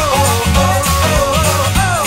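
Upbeat pop-rock background music with a steady beat and a gliding lead melody.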